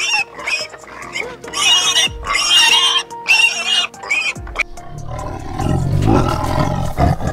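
A piglet squealing in a string of short high-pitched bursts for about four seconds, then a tiger growling low and deep. Background music plays underneath.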